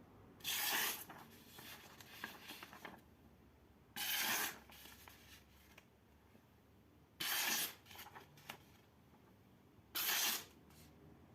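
Four short rasping strokes, each about half a second long and about three seconds apart, against a quiet background.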